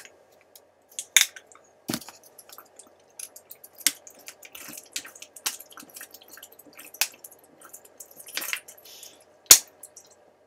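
Thin disposable plastic water bottle crackling and clicking as it is gripped and drunk from, with several sharp snaps of the plastic among many small crackles.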